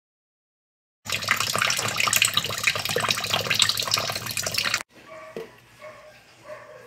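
Tap water running hard into a plastic tub of mung beans in a stainless steel sink as the beans are washed. It starts about a second in and cuts off suddenly a couple of seconds before the end, leaving only faint small sounds.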